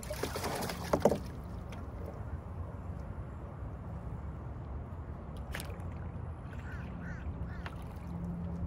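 Water poured from a plastic bucket into a cooler, a short splashing gush that ends about a second in. Later, a steady low rumble and a few short quacking bird calls near the end.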